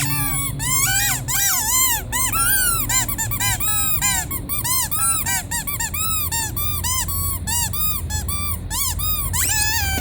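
Squeaky rubber toy squeezed over and over, giving a rapid run of squeaks, about three a second, each one rising and then falling in pitch.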